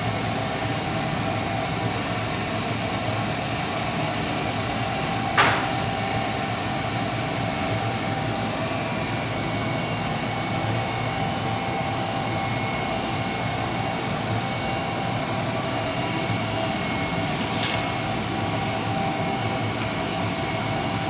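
Miura EH 1000 FH steam boiler running: a steady mechanical noise with a held tone through it. A sharp click comes about five seconds in, and a fainter one later on.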